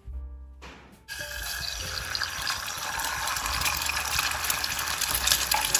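Egg frying in hot oil in a pan: a steady sizzle with many crackling spits, starting abruptly about a second in.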